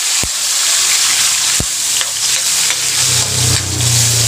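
Tomatoes and onions sizzling in hot oil in a black metal wok, stirred with a metal ladle scraping the pan. A low hum comes in about a second in and grows louder near the end.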